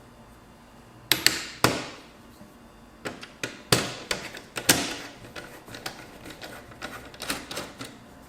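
An HP G72 laptop's plastic case and display assembly clicking and knocking while being pried and worked free by hand. Several sharp knocks come in the first five seconds, then a quick run of smaller clicks.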